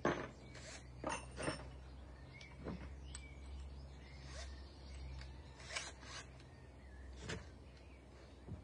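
Scattered light clicks and knocks of hand work at a timber wall frame, such as handling screws and timber, over a steady low hum, with a few faint bird chirps.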